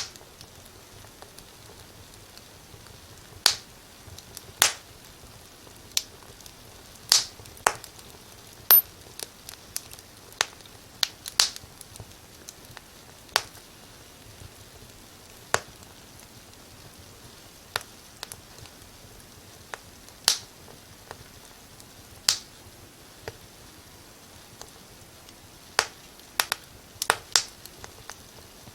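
Wood fire crackling in a fireplace: irregular sharp pops and snaps, sometimes in quick clusters, over a faint steady hiss.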